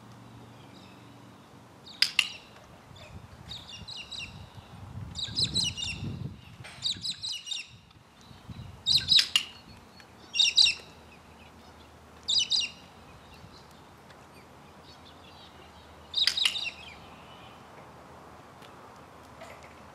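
Bird chirping in short, sharp high-pitched calls, about eight of them at irregular intervals.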